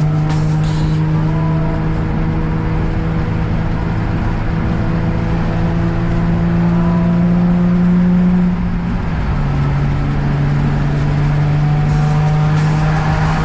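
Infiniti G35 coupe's V6 engine and leaking exhaust droning loudly on the move. The pitch climbs slowly for about eight seconds, then drops at a gear change and holds steady. The loudness comes from a large hole in the exhaust, which the owner blames for the car sounding louder than it should.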